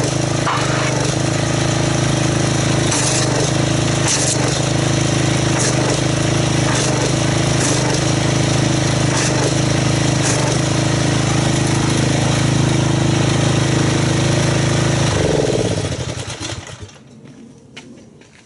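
Pressure washer running steadily, its spray blasting into a bucket of car soap to whip it into foam. About fifteen seconds in the motor shuts off, its pitch falling as it winds down.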